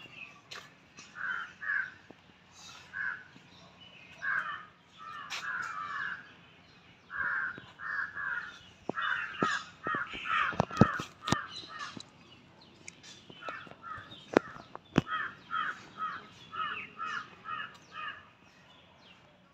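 Crows cawing over and over in short runs of two to five calls. A few sharp clicks come near the middle.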